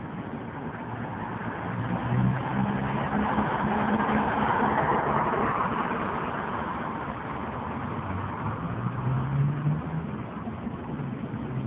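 A car driving past, its engine and tyre noise swelling to a peak about halfway through and then fading, with another engine note rising briefly near the end.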